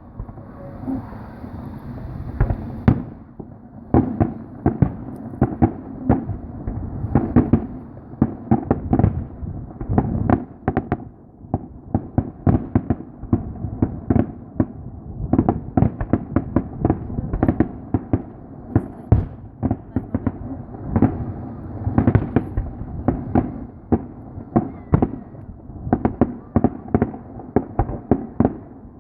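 Aerial fireworks bursting in rapid succession: a continuous barrage of sharp cracks and deeper booms, several a second, growing denser after about halfway.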